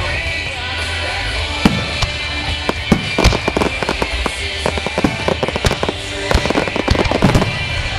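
Aerial fireworks shells bursting overhead in quick succession: a string of sharp bangs, thickening into a dense run of crackling reports in the second half.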